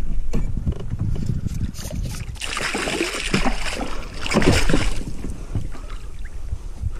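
A hooked fish thrashing and splashing at the water's surface beside a kayak, loudest from about two and a half to five seconds in, over a low steady rumble of water and wind.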